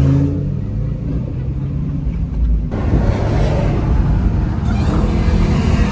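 Car engines running and road noise heard from inside a moving car. An engine note that has just risen holds steady for about a second, then gives way to a low rumble, which turns brighter and hissier partway through.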